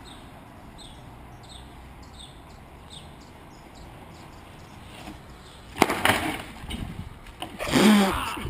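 Low steady outdoor hiss with faint high chirps, then loud bursts of noise from about six seconds in and a short cry near the end, as a person falls in the street.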